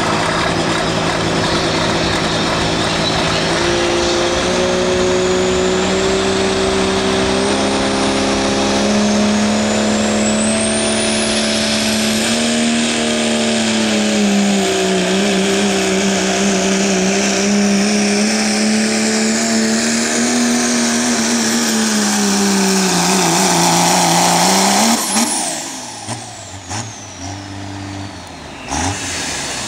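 Diesel pickup truck engine at full throttle, pulling a weight sled. The revs climb in steps over the first several seconds, and a high whistle rises in pitch around ten seconds in. Near the end the engine note sags, then drops away sharply to a quieter idle as the throttle is let off.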